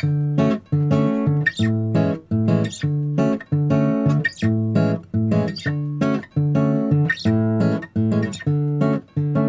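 Background music: guitar chords strummed in a steady, even rhythm.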